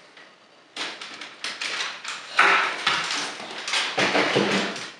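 Large plastic Samurai Gigazord toy being lifted off a tabletop and moved aside. From about a second in there is a string of irregular plastic knocks, rattles and scrapes, the loudest about two and a half seconds in.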